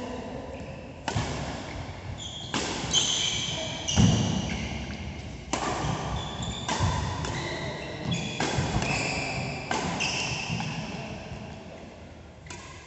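Badminton racket strikes on a shuttlecock during a doubles rally, a sharp crack about every second and a half, echoing in a large hall, with short high squeaks of court shoes on the synthetic court mat between shots.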